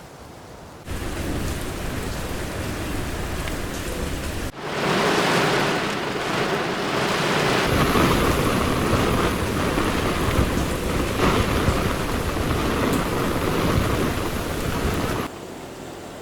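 Loud, steady rush of falling water, as of heavy monsoon rain, in spliced takes. It jumps up abruptly about a second in, cuts out briefly and returns louder about four and a half seconds in, and drops off suddenly about a second before the end.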